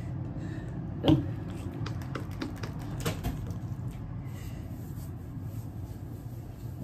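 Fingers working conditioner through wet hair: wet squishing and clicking, with one sharp smack about a second in and a quick run of clicks a couple of seconds later.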